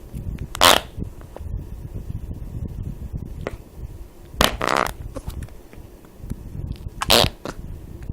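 Fart sounds: three short blasts spread over several seconds, the middle one the longest, over a low rumbling background.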